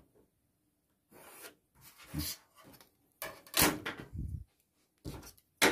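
Clear plastic ruler and set square sliding across paper and being lifted off, giving several short scraping rubs, the loudest about three and a half seconds in, then a short sharp click near the end.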